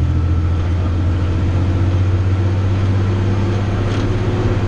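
Snow pusher truck's engine running steadily while driving, a low drone heard from inside the cab.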